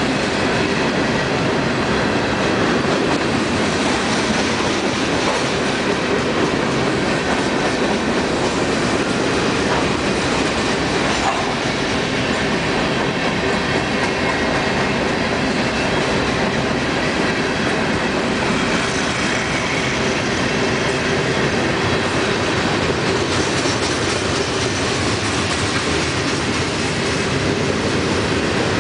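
A freight train's cars rolling past at speed, a steady, unbroken rumble and clatter of steel wheels on the rails. The consist is a mix of open hoppers, covered hoppers and coil cars.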